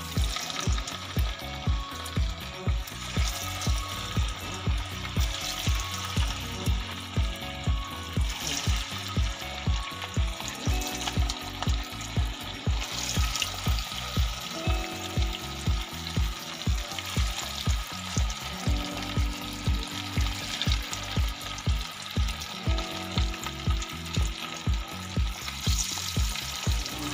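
Marinated fish pieces deep-frying in hot oil in a small iron kadai: a steady sizzle and bubbling. Background music with an even beat plays under it.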